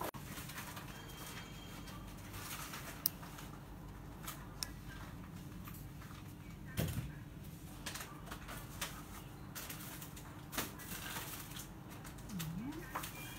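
Steady low room hum with scattered faint clicks and taps, and a short low dip-and-rise sound near the end.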